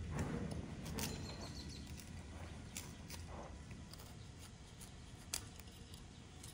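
A knife cutting through the firm stem of a raw cauliflower to separate the florets: crisp crunching and a few sharp snaps, loudest in the first second or so.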